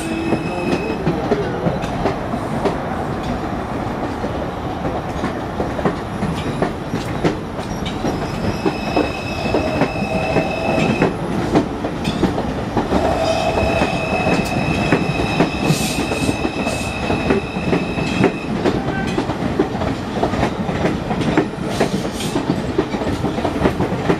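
New York City Subway 2 train pulling out along the platform: a steady rumble with steel wheels clacking over the rail joints. A thin high whine comes in twice, in the middle.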